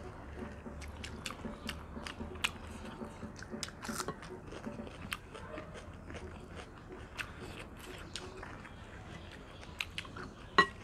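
Close-up eating sounds of two people eating rice and soft mutton curry by hand: chewing with frequent small wet mouth clicks and smacks. A sharper click stands out near the end.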